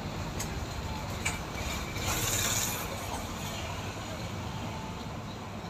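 Home theatre subwoofer giving a few faint 'chik chik' clicks over a steady hiss, with a brighter burst of hiss about two seconds in. This is the symptom of the unit's fault, which the repairer traces to a blown fuse-type component (F1) on the power supply board.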